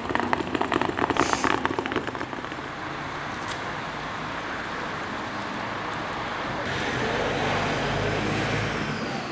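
Small wheels of a rolling suitcase rattling fast over paving blocks for about the first two seconds, then steady street traffic noise, with a vehicle's low rumble swelling near the end.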